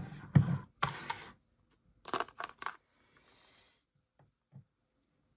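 Handling noises from a slime kit's small containers on a tabletop: a burst of knocks with one loud knock about half a second in, three quick sharp clicks just after two seconds, a faint brief rustle, then a small thud near the end.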